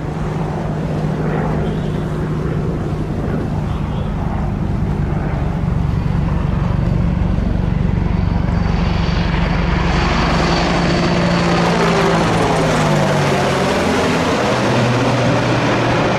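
AH-64 Apache attack helicopter flying toward and past: a steady rotor drone that grows louder as it nears, then drops in pitch near the end as it goes by.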